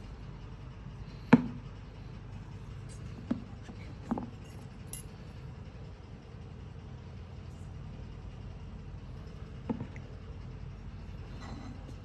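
Four sharp clinks and knocks of hard objects being handled, the first the loudest, over a steady low hum: parts of an aftermarket motorcycle cylinder head being handled as it is unboxed.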